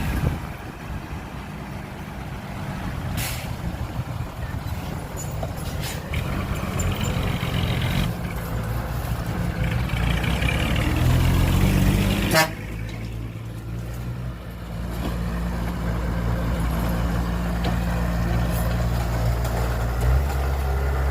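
Heavy diesel engines of a bulldozer and dump truck working, with a steady low engine note. The engine revs up about ten seconds in, and a sharp burst comes at the peak, followed by a few smaller clanks and clicks.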